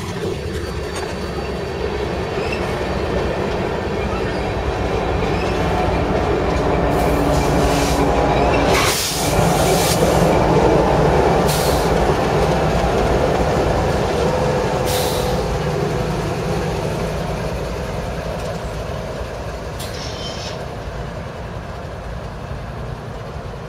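Empty coal train's hopper cars rolling past with wheel squeal over a steady rumble. A BNSF GE Evolution-series diesel locomotive passes, loudest about halfway through, and the sound then fades as it moves away.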